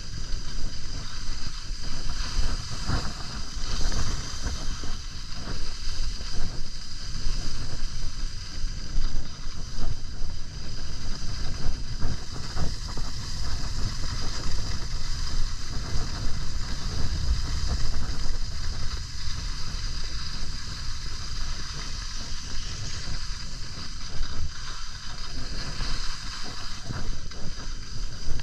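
Wind buffeting the microphone of a camera carried by a downhill skier, a gusty low rumble, with the steady hiss of skis sliding over snow.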